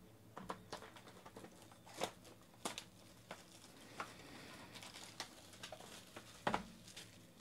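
Clear plastic shrink-wrap crinkling and rustling as a sealed Topps Tier One trading-card box is unwrapped by hand, with scattered light taps of the cardboard box. A louder knock comes about six and a half seconds in.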